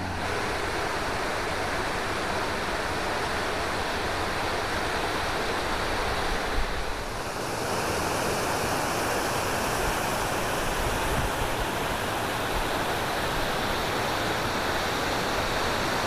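Steady rushing of a waterfall, a constant hiss of falling water. It grows slightly louder and brighter about seven or eight seconds in.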